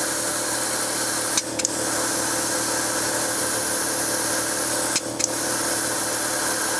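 Air compressor running steadily while compressed air hisses through the hose chuck into a flat, long-parked car tire as it inflates. The hiss breaks off briefly about one and a half seconds in and again about five seconds in.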